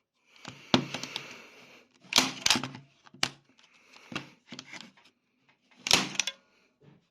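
Hand-held staple gun being handled: about five groups of sharp mechanical clicks and knocks, plastic and metal clattering against wood.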